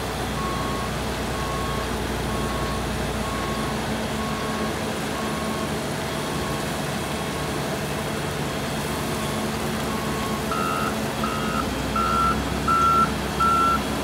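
Heavy machinery engines running steadily while a backup alarm beeps about once a second. About ten seconds in, a louder, slightly higher backup alarm starts, beeping a little faster, as the wheel loader reverses away from the slinger.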